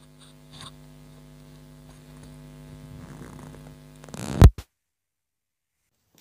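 Steady low electrical mains hum with a few faint clicks. About four and a half seconds in, a loud thump, and then the sound cuts off suddenly.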